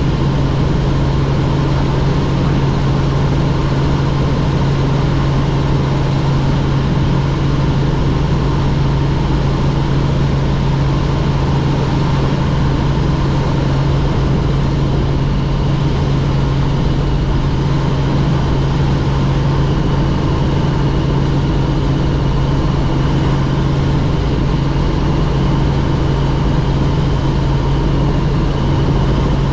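Helicopter in flight: steady engine and rotor noise with a strong, unchanging deep hum.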